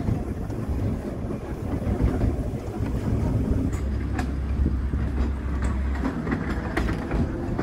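Narrow-gauge electric tram running along the track: a steady low rumble of wheels on rail with scattered sharp clicks.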